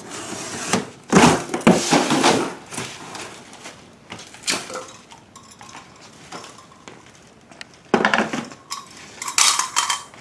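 A corrugated cardboard box being cut down at one end and its front panel folded flat, with scraping and crackling of cardboard and styrofoam packing. The handling is loudest in the first two and a half seconds, with more bursts near the end.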